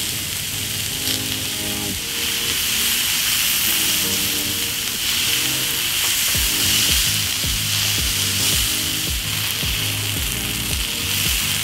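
Sliced onions and red capsicum sizzling steadily in oil on a hot grill plate.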